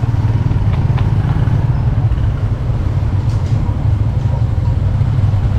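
Motor scooter engine running as the bike rides slowly along, heard from on the bike as a steady low rumble.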